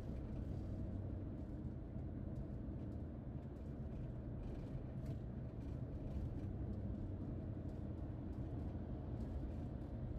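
Steady low rumble of a car cruising at highway speed, tyre and engine noise heard from inside the cabin.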